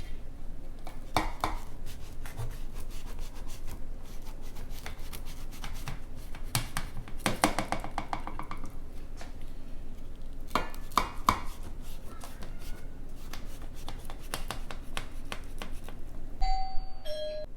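A flatbread filled with flaxseed and niger seed being broken apart by hand: a run of dry crackles, crumbles and rustles, thickest about seven seconds in and again around eleven seconds.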